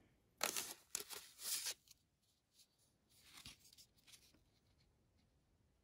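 A small paper envelope rustling as it is handled and opened: several short crinkles in the first two seconds, then a softer rustle around the middle.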